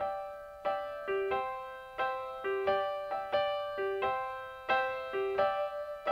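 Background music: a soft electric-piano or keyboard intro, chords struck about every two-thirds of a second and each left to ring and fade.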